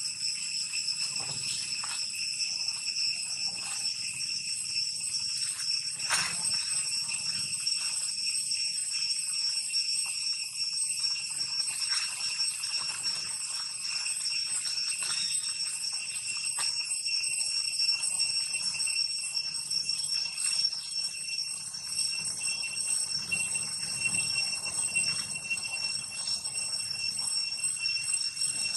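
A steady, high-pitched chorus of buzzing insects, typical of cicadas, shrilling at several pitches at once without a break. A few brief rustles or clicks sound over it.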